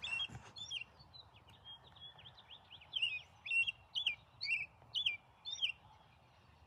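A bird chirping: a steady run of short, high chirps, each a quick hooked note, coming about two a second and louder in the second half.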